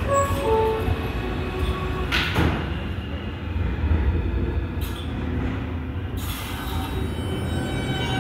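R160 New York subway train standing at the platform with a steady low rumble. From about six seconds in it starts to pull out, adding a hiss and a steady whine.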